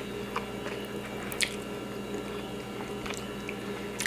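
Close-miked eating sounds: wet chewing and smacking of rice and oily Bicol Express eaten by hand, with a few sharp lip smacks or mouth clicks, the loudest about a second and a half in.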